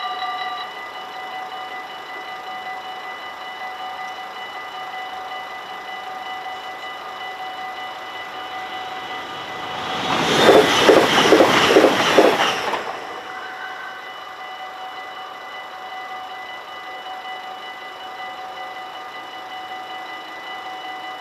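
Dutch level-crossing bell ringing steadily, dropping in volume within the first second as the barriers settle down. About ten seconds in a train passes quickly, the loudest sound, its wheels clattering rhythmically over the rails for under three seconds. The bell keeps ringing while the barriers rise near the end.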